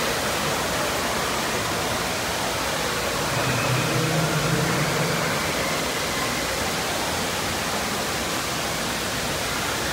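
Steady rushing water noise filling an indoor water park hall, an even wash of sound with no distinct events.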